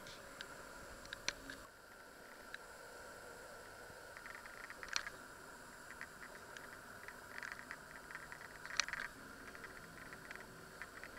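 Faint, scattered light clicks and small rustles over a steady hiss, in small clusters, with one sharper click about three-quarters of the way through.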